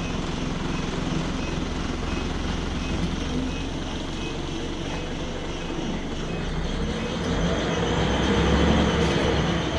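Scania L94UB bus engine heard from inside the passenger saloon, running steadily at low revs, then about seven seconds in the revs rise and it grows louder as the bus accelerates.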